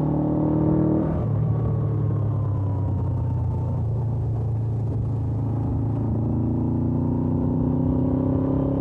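Suzuki GS500F's air-cooled parallel-twin engine through its stock exhaust, ridden on the road. The revs drop sharply about a second in, then the engine runs at low revs and slowly climbs under throttle toward the end.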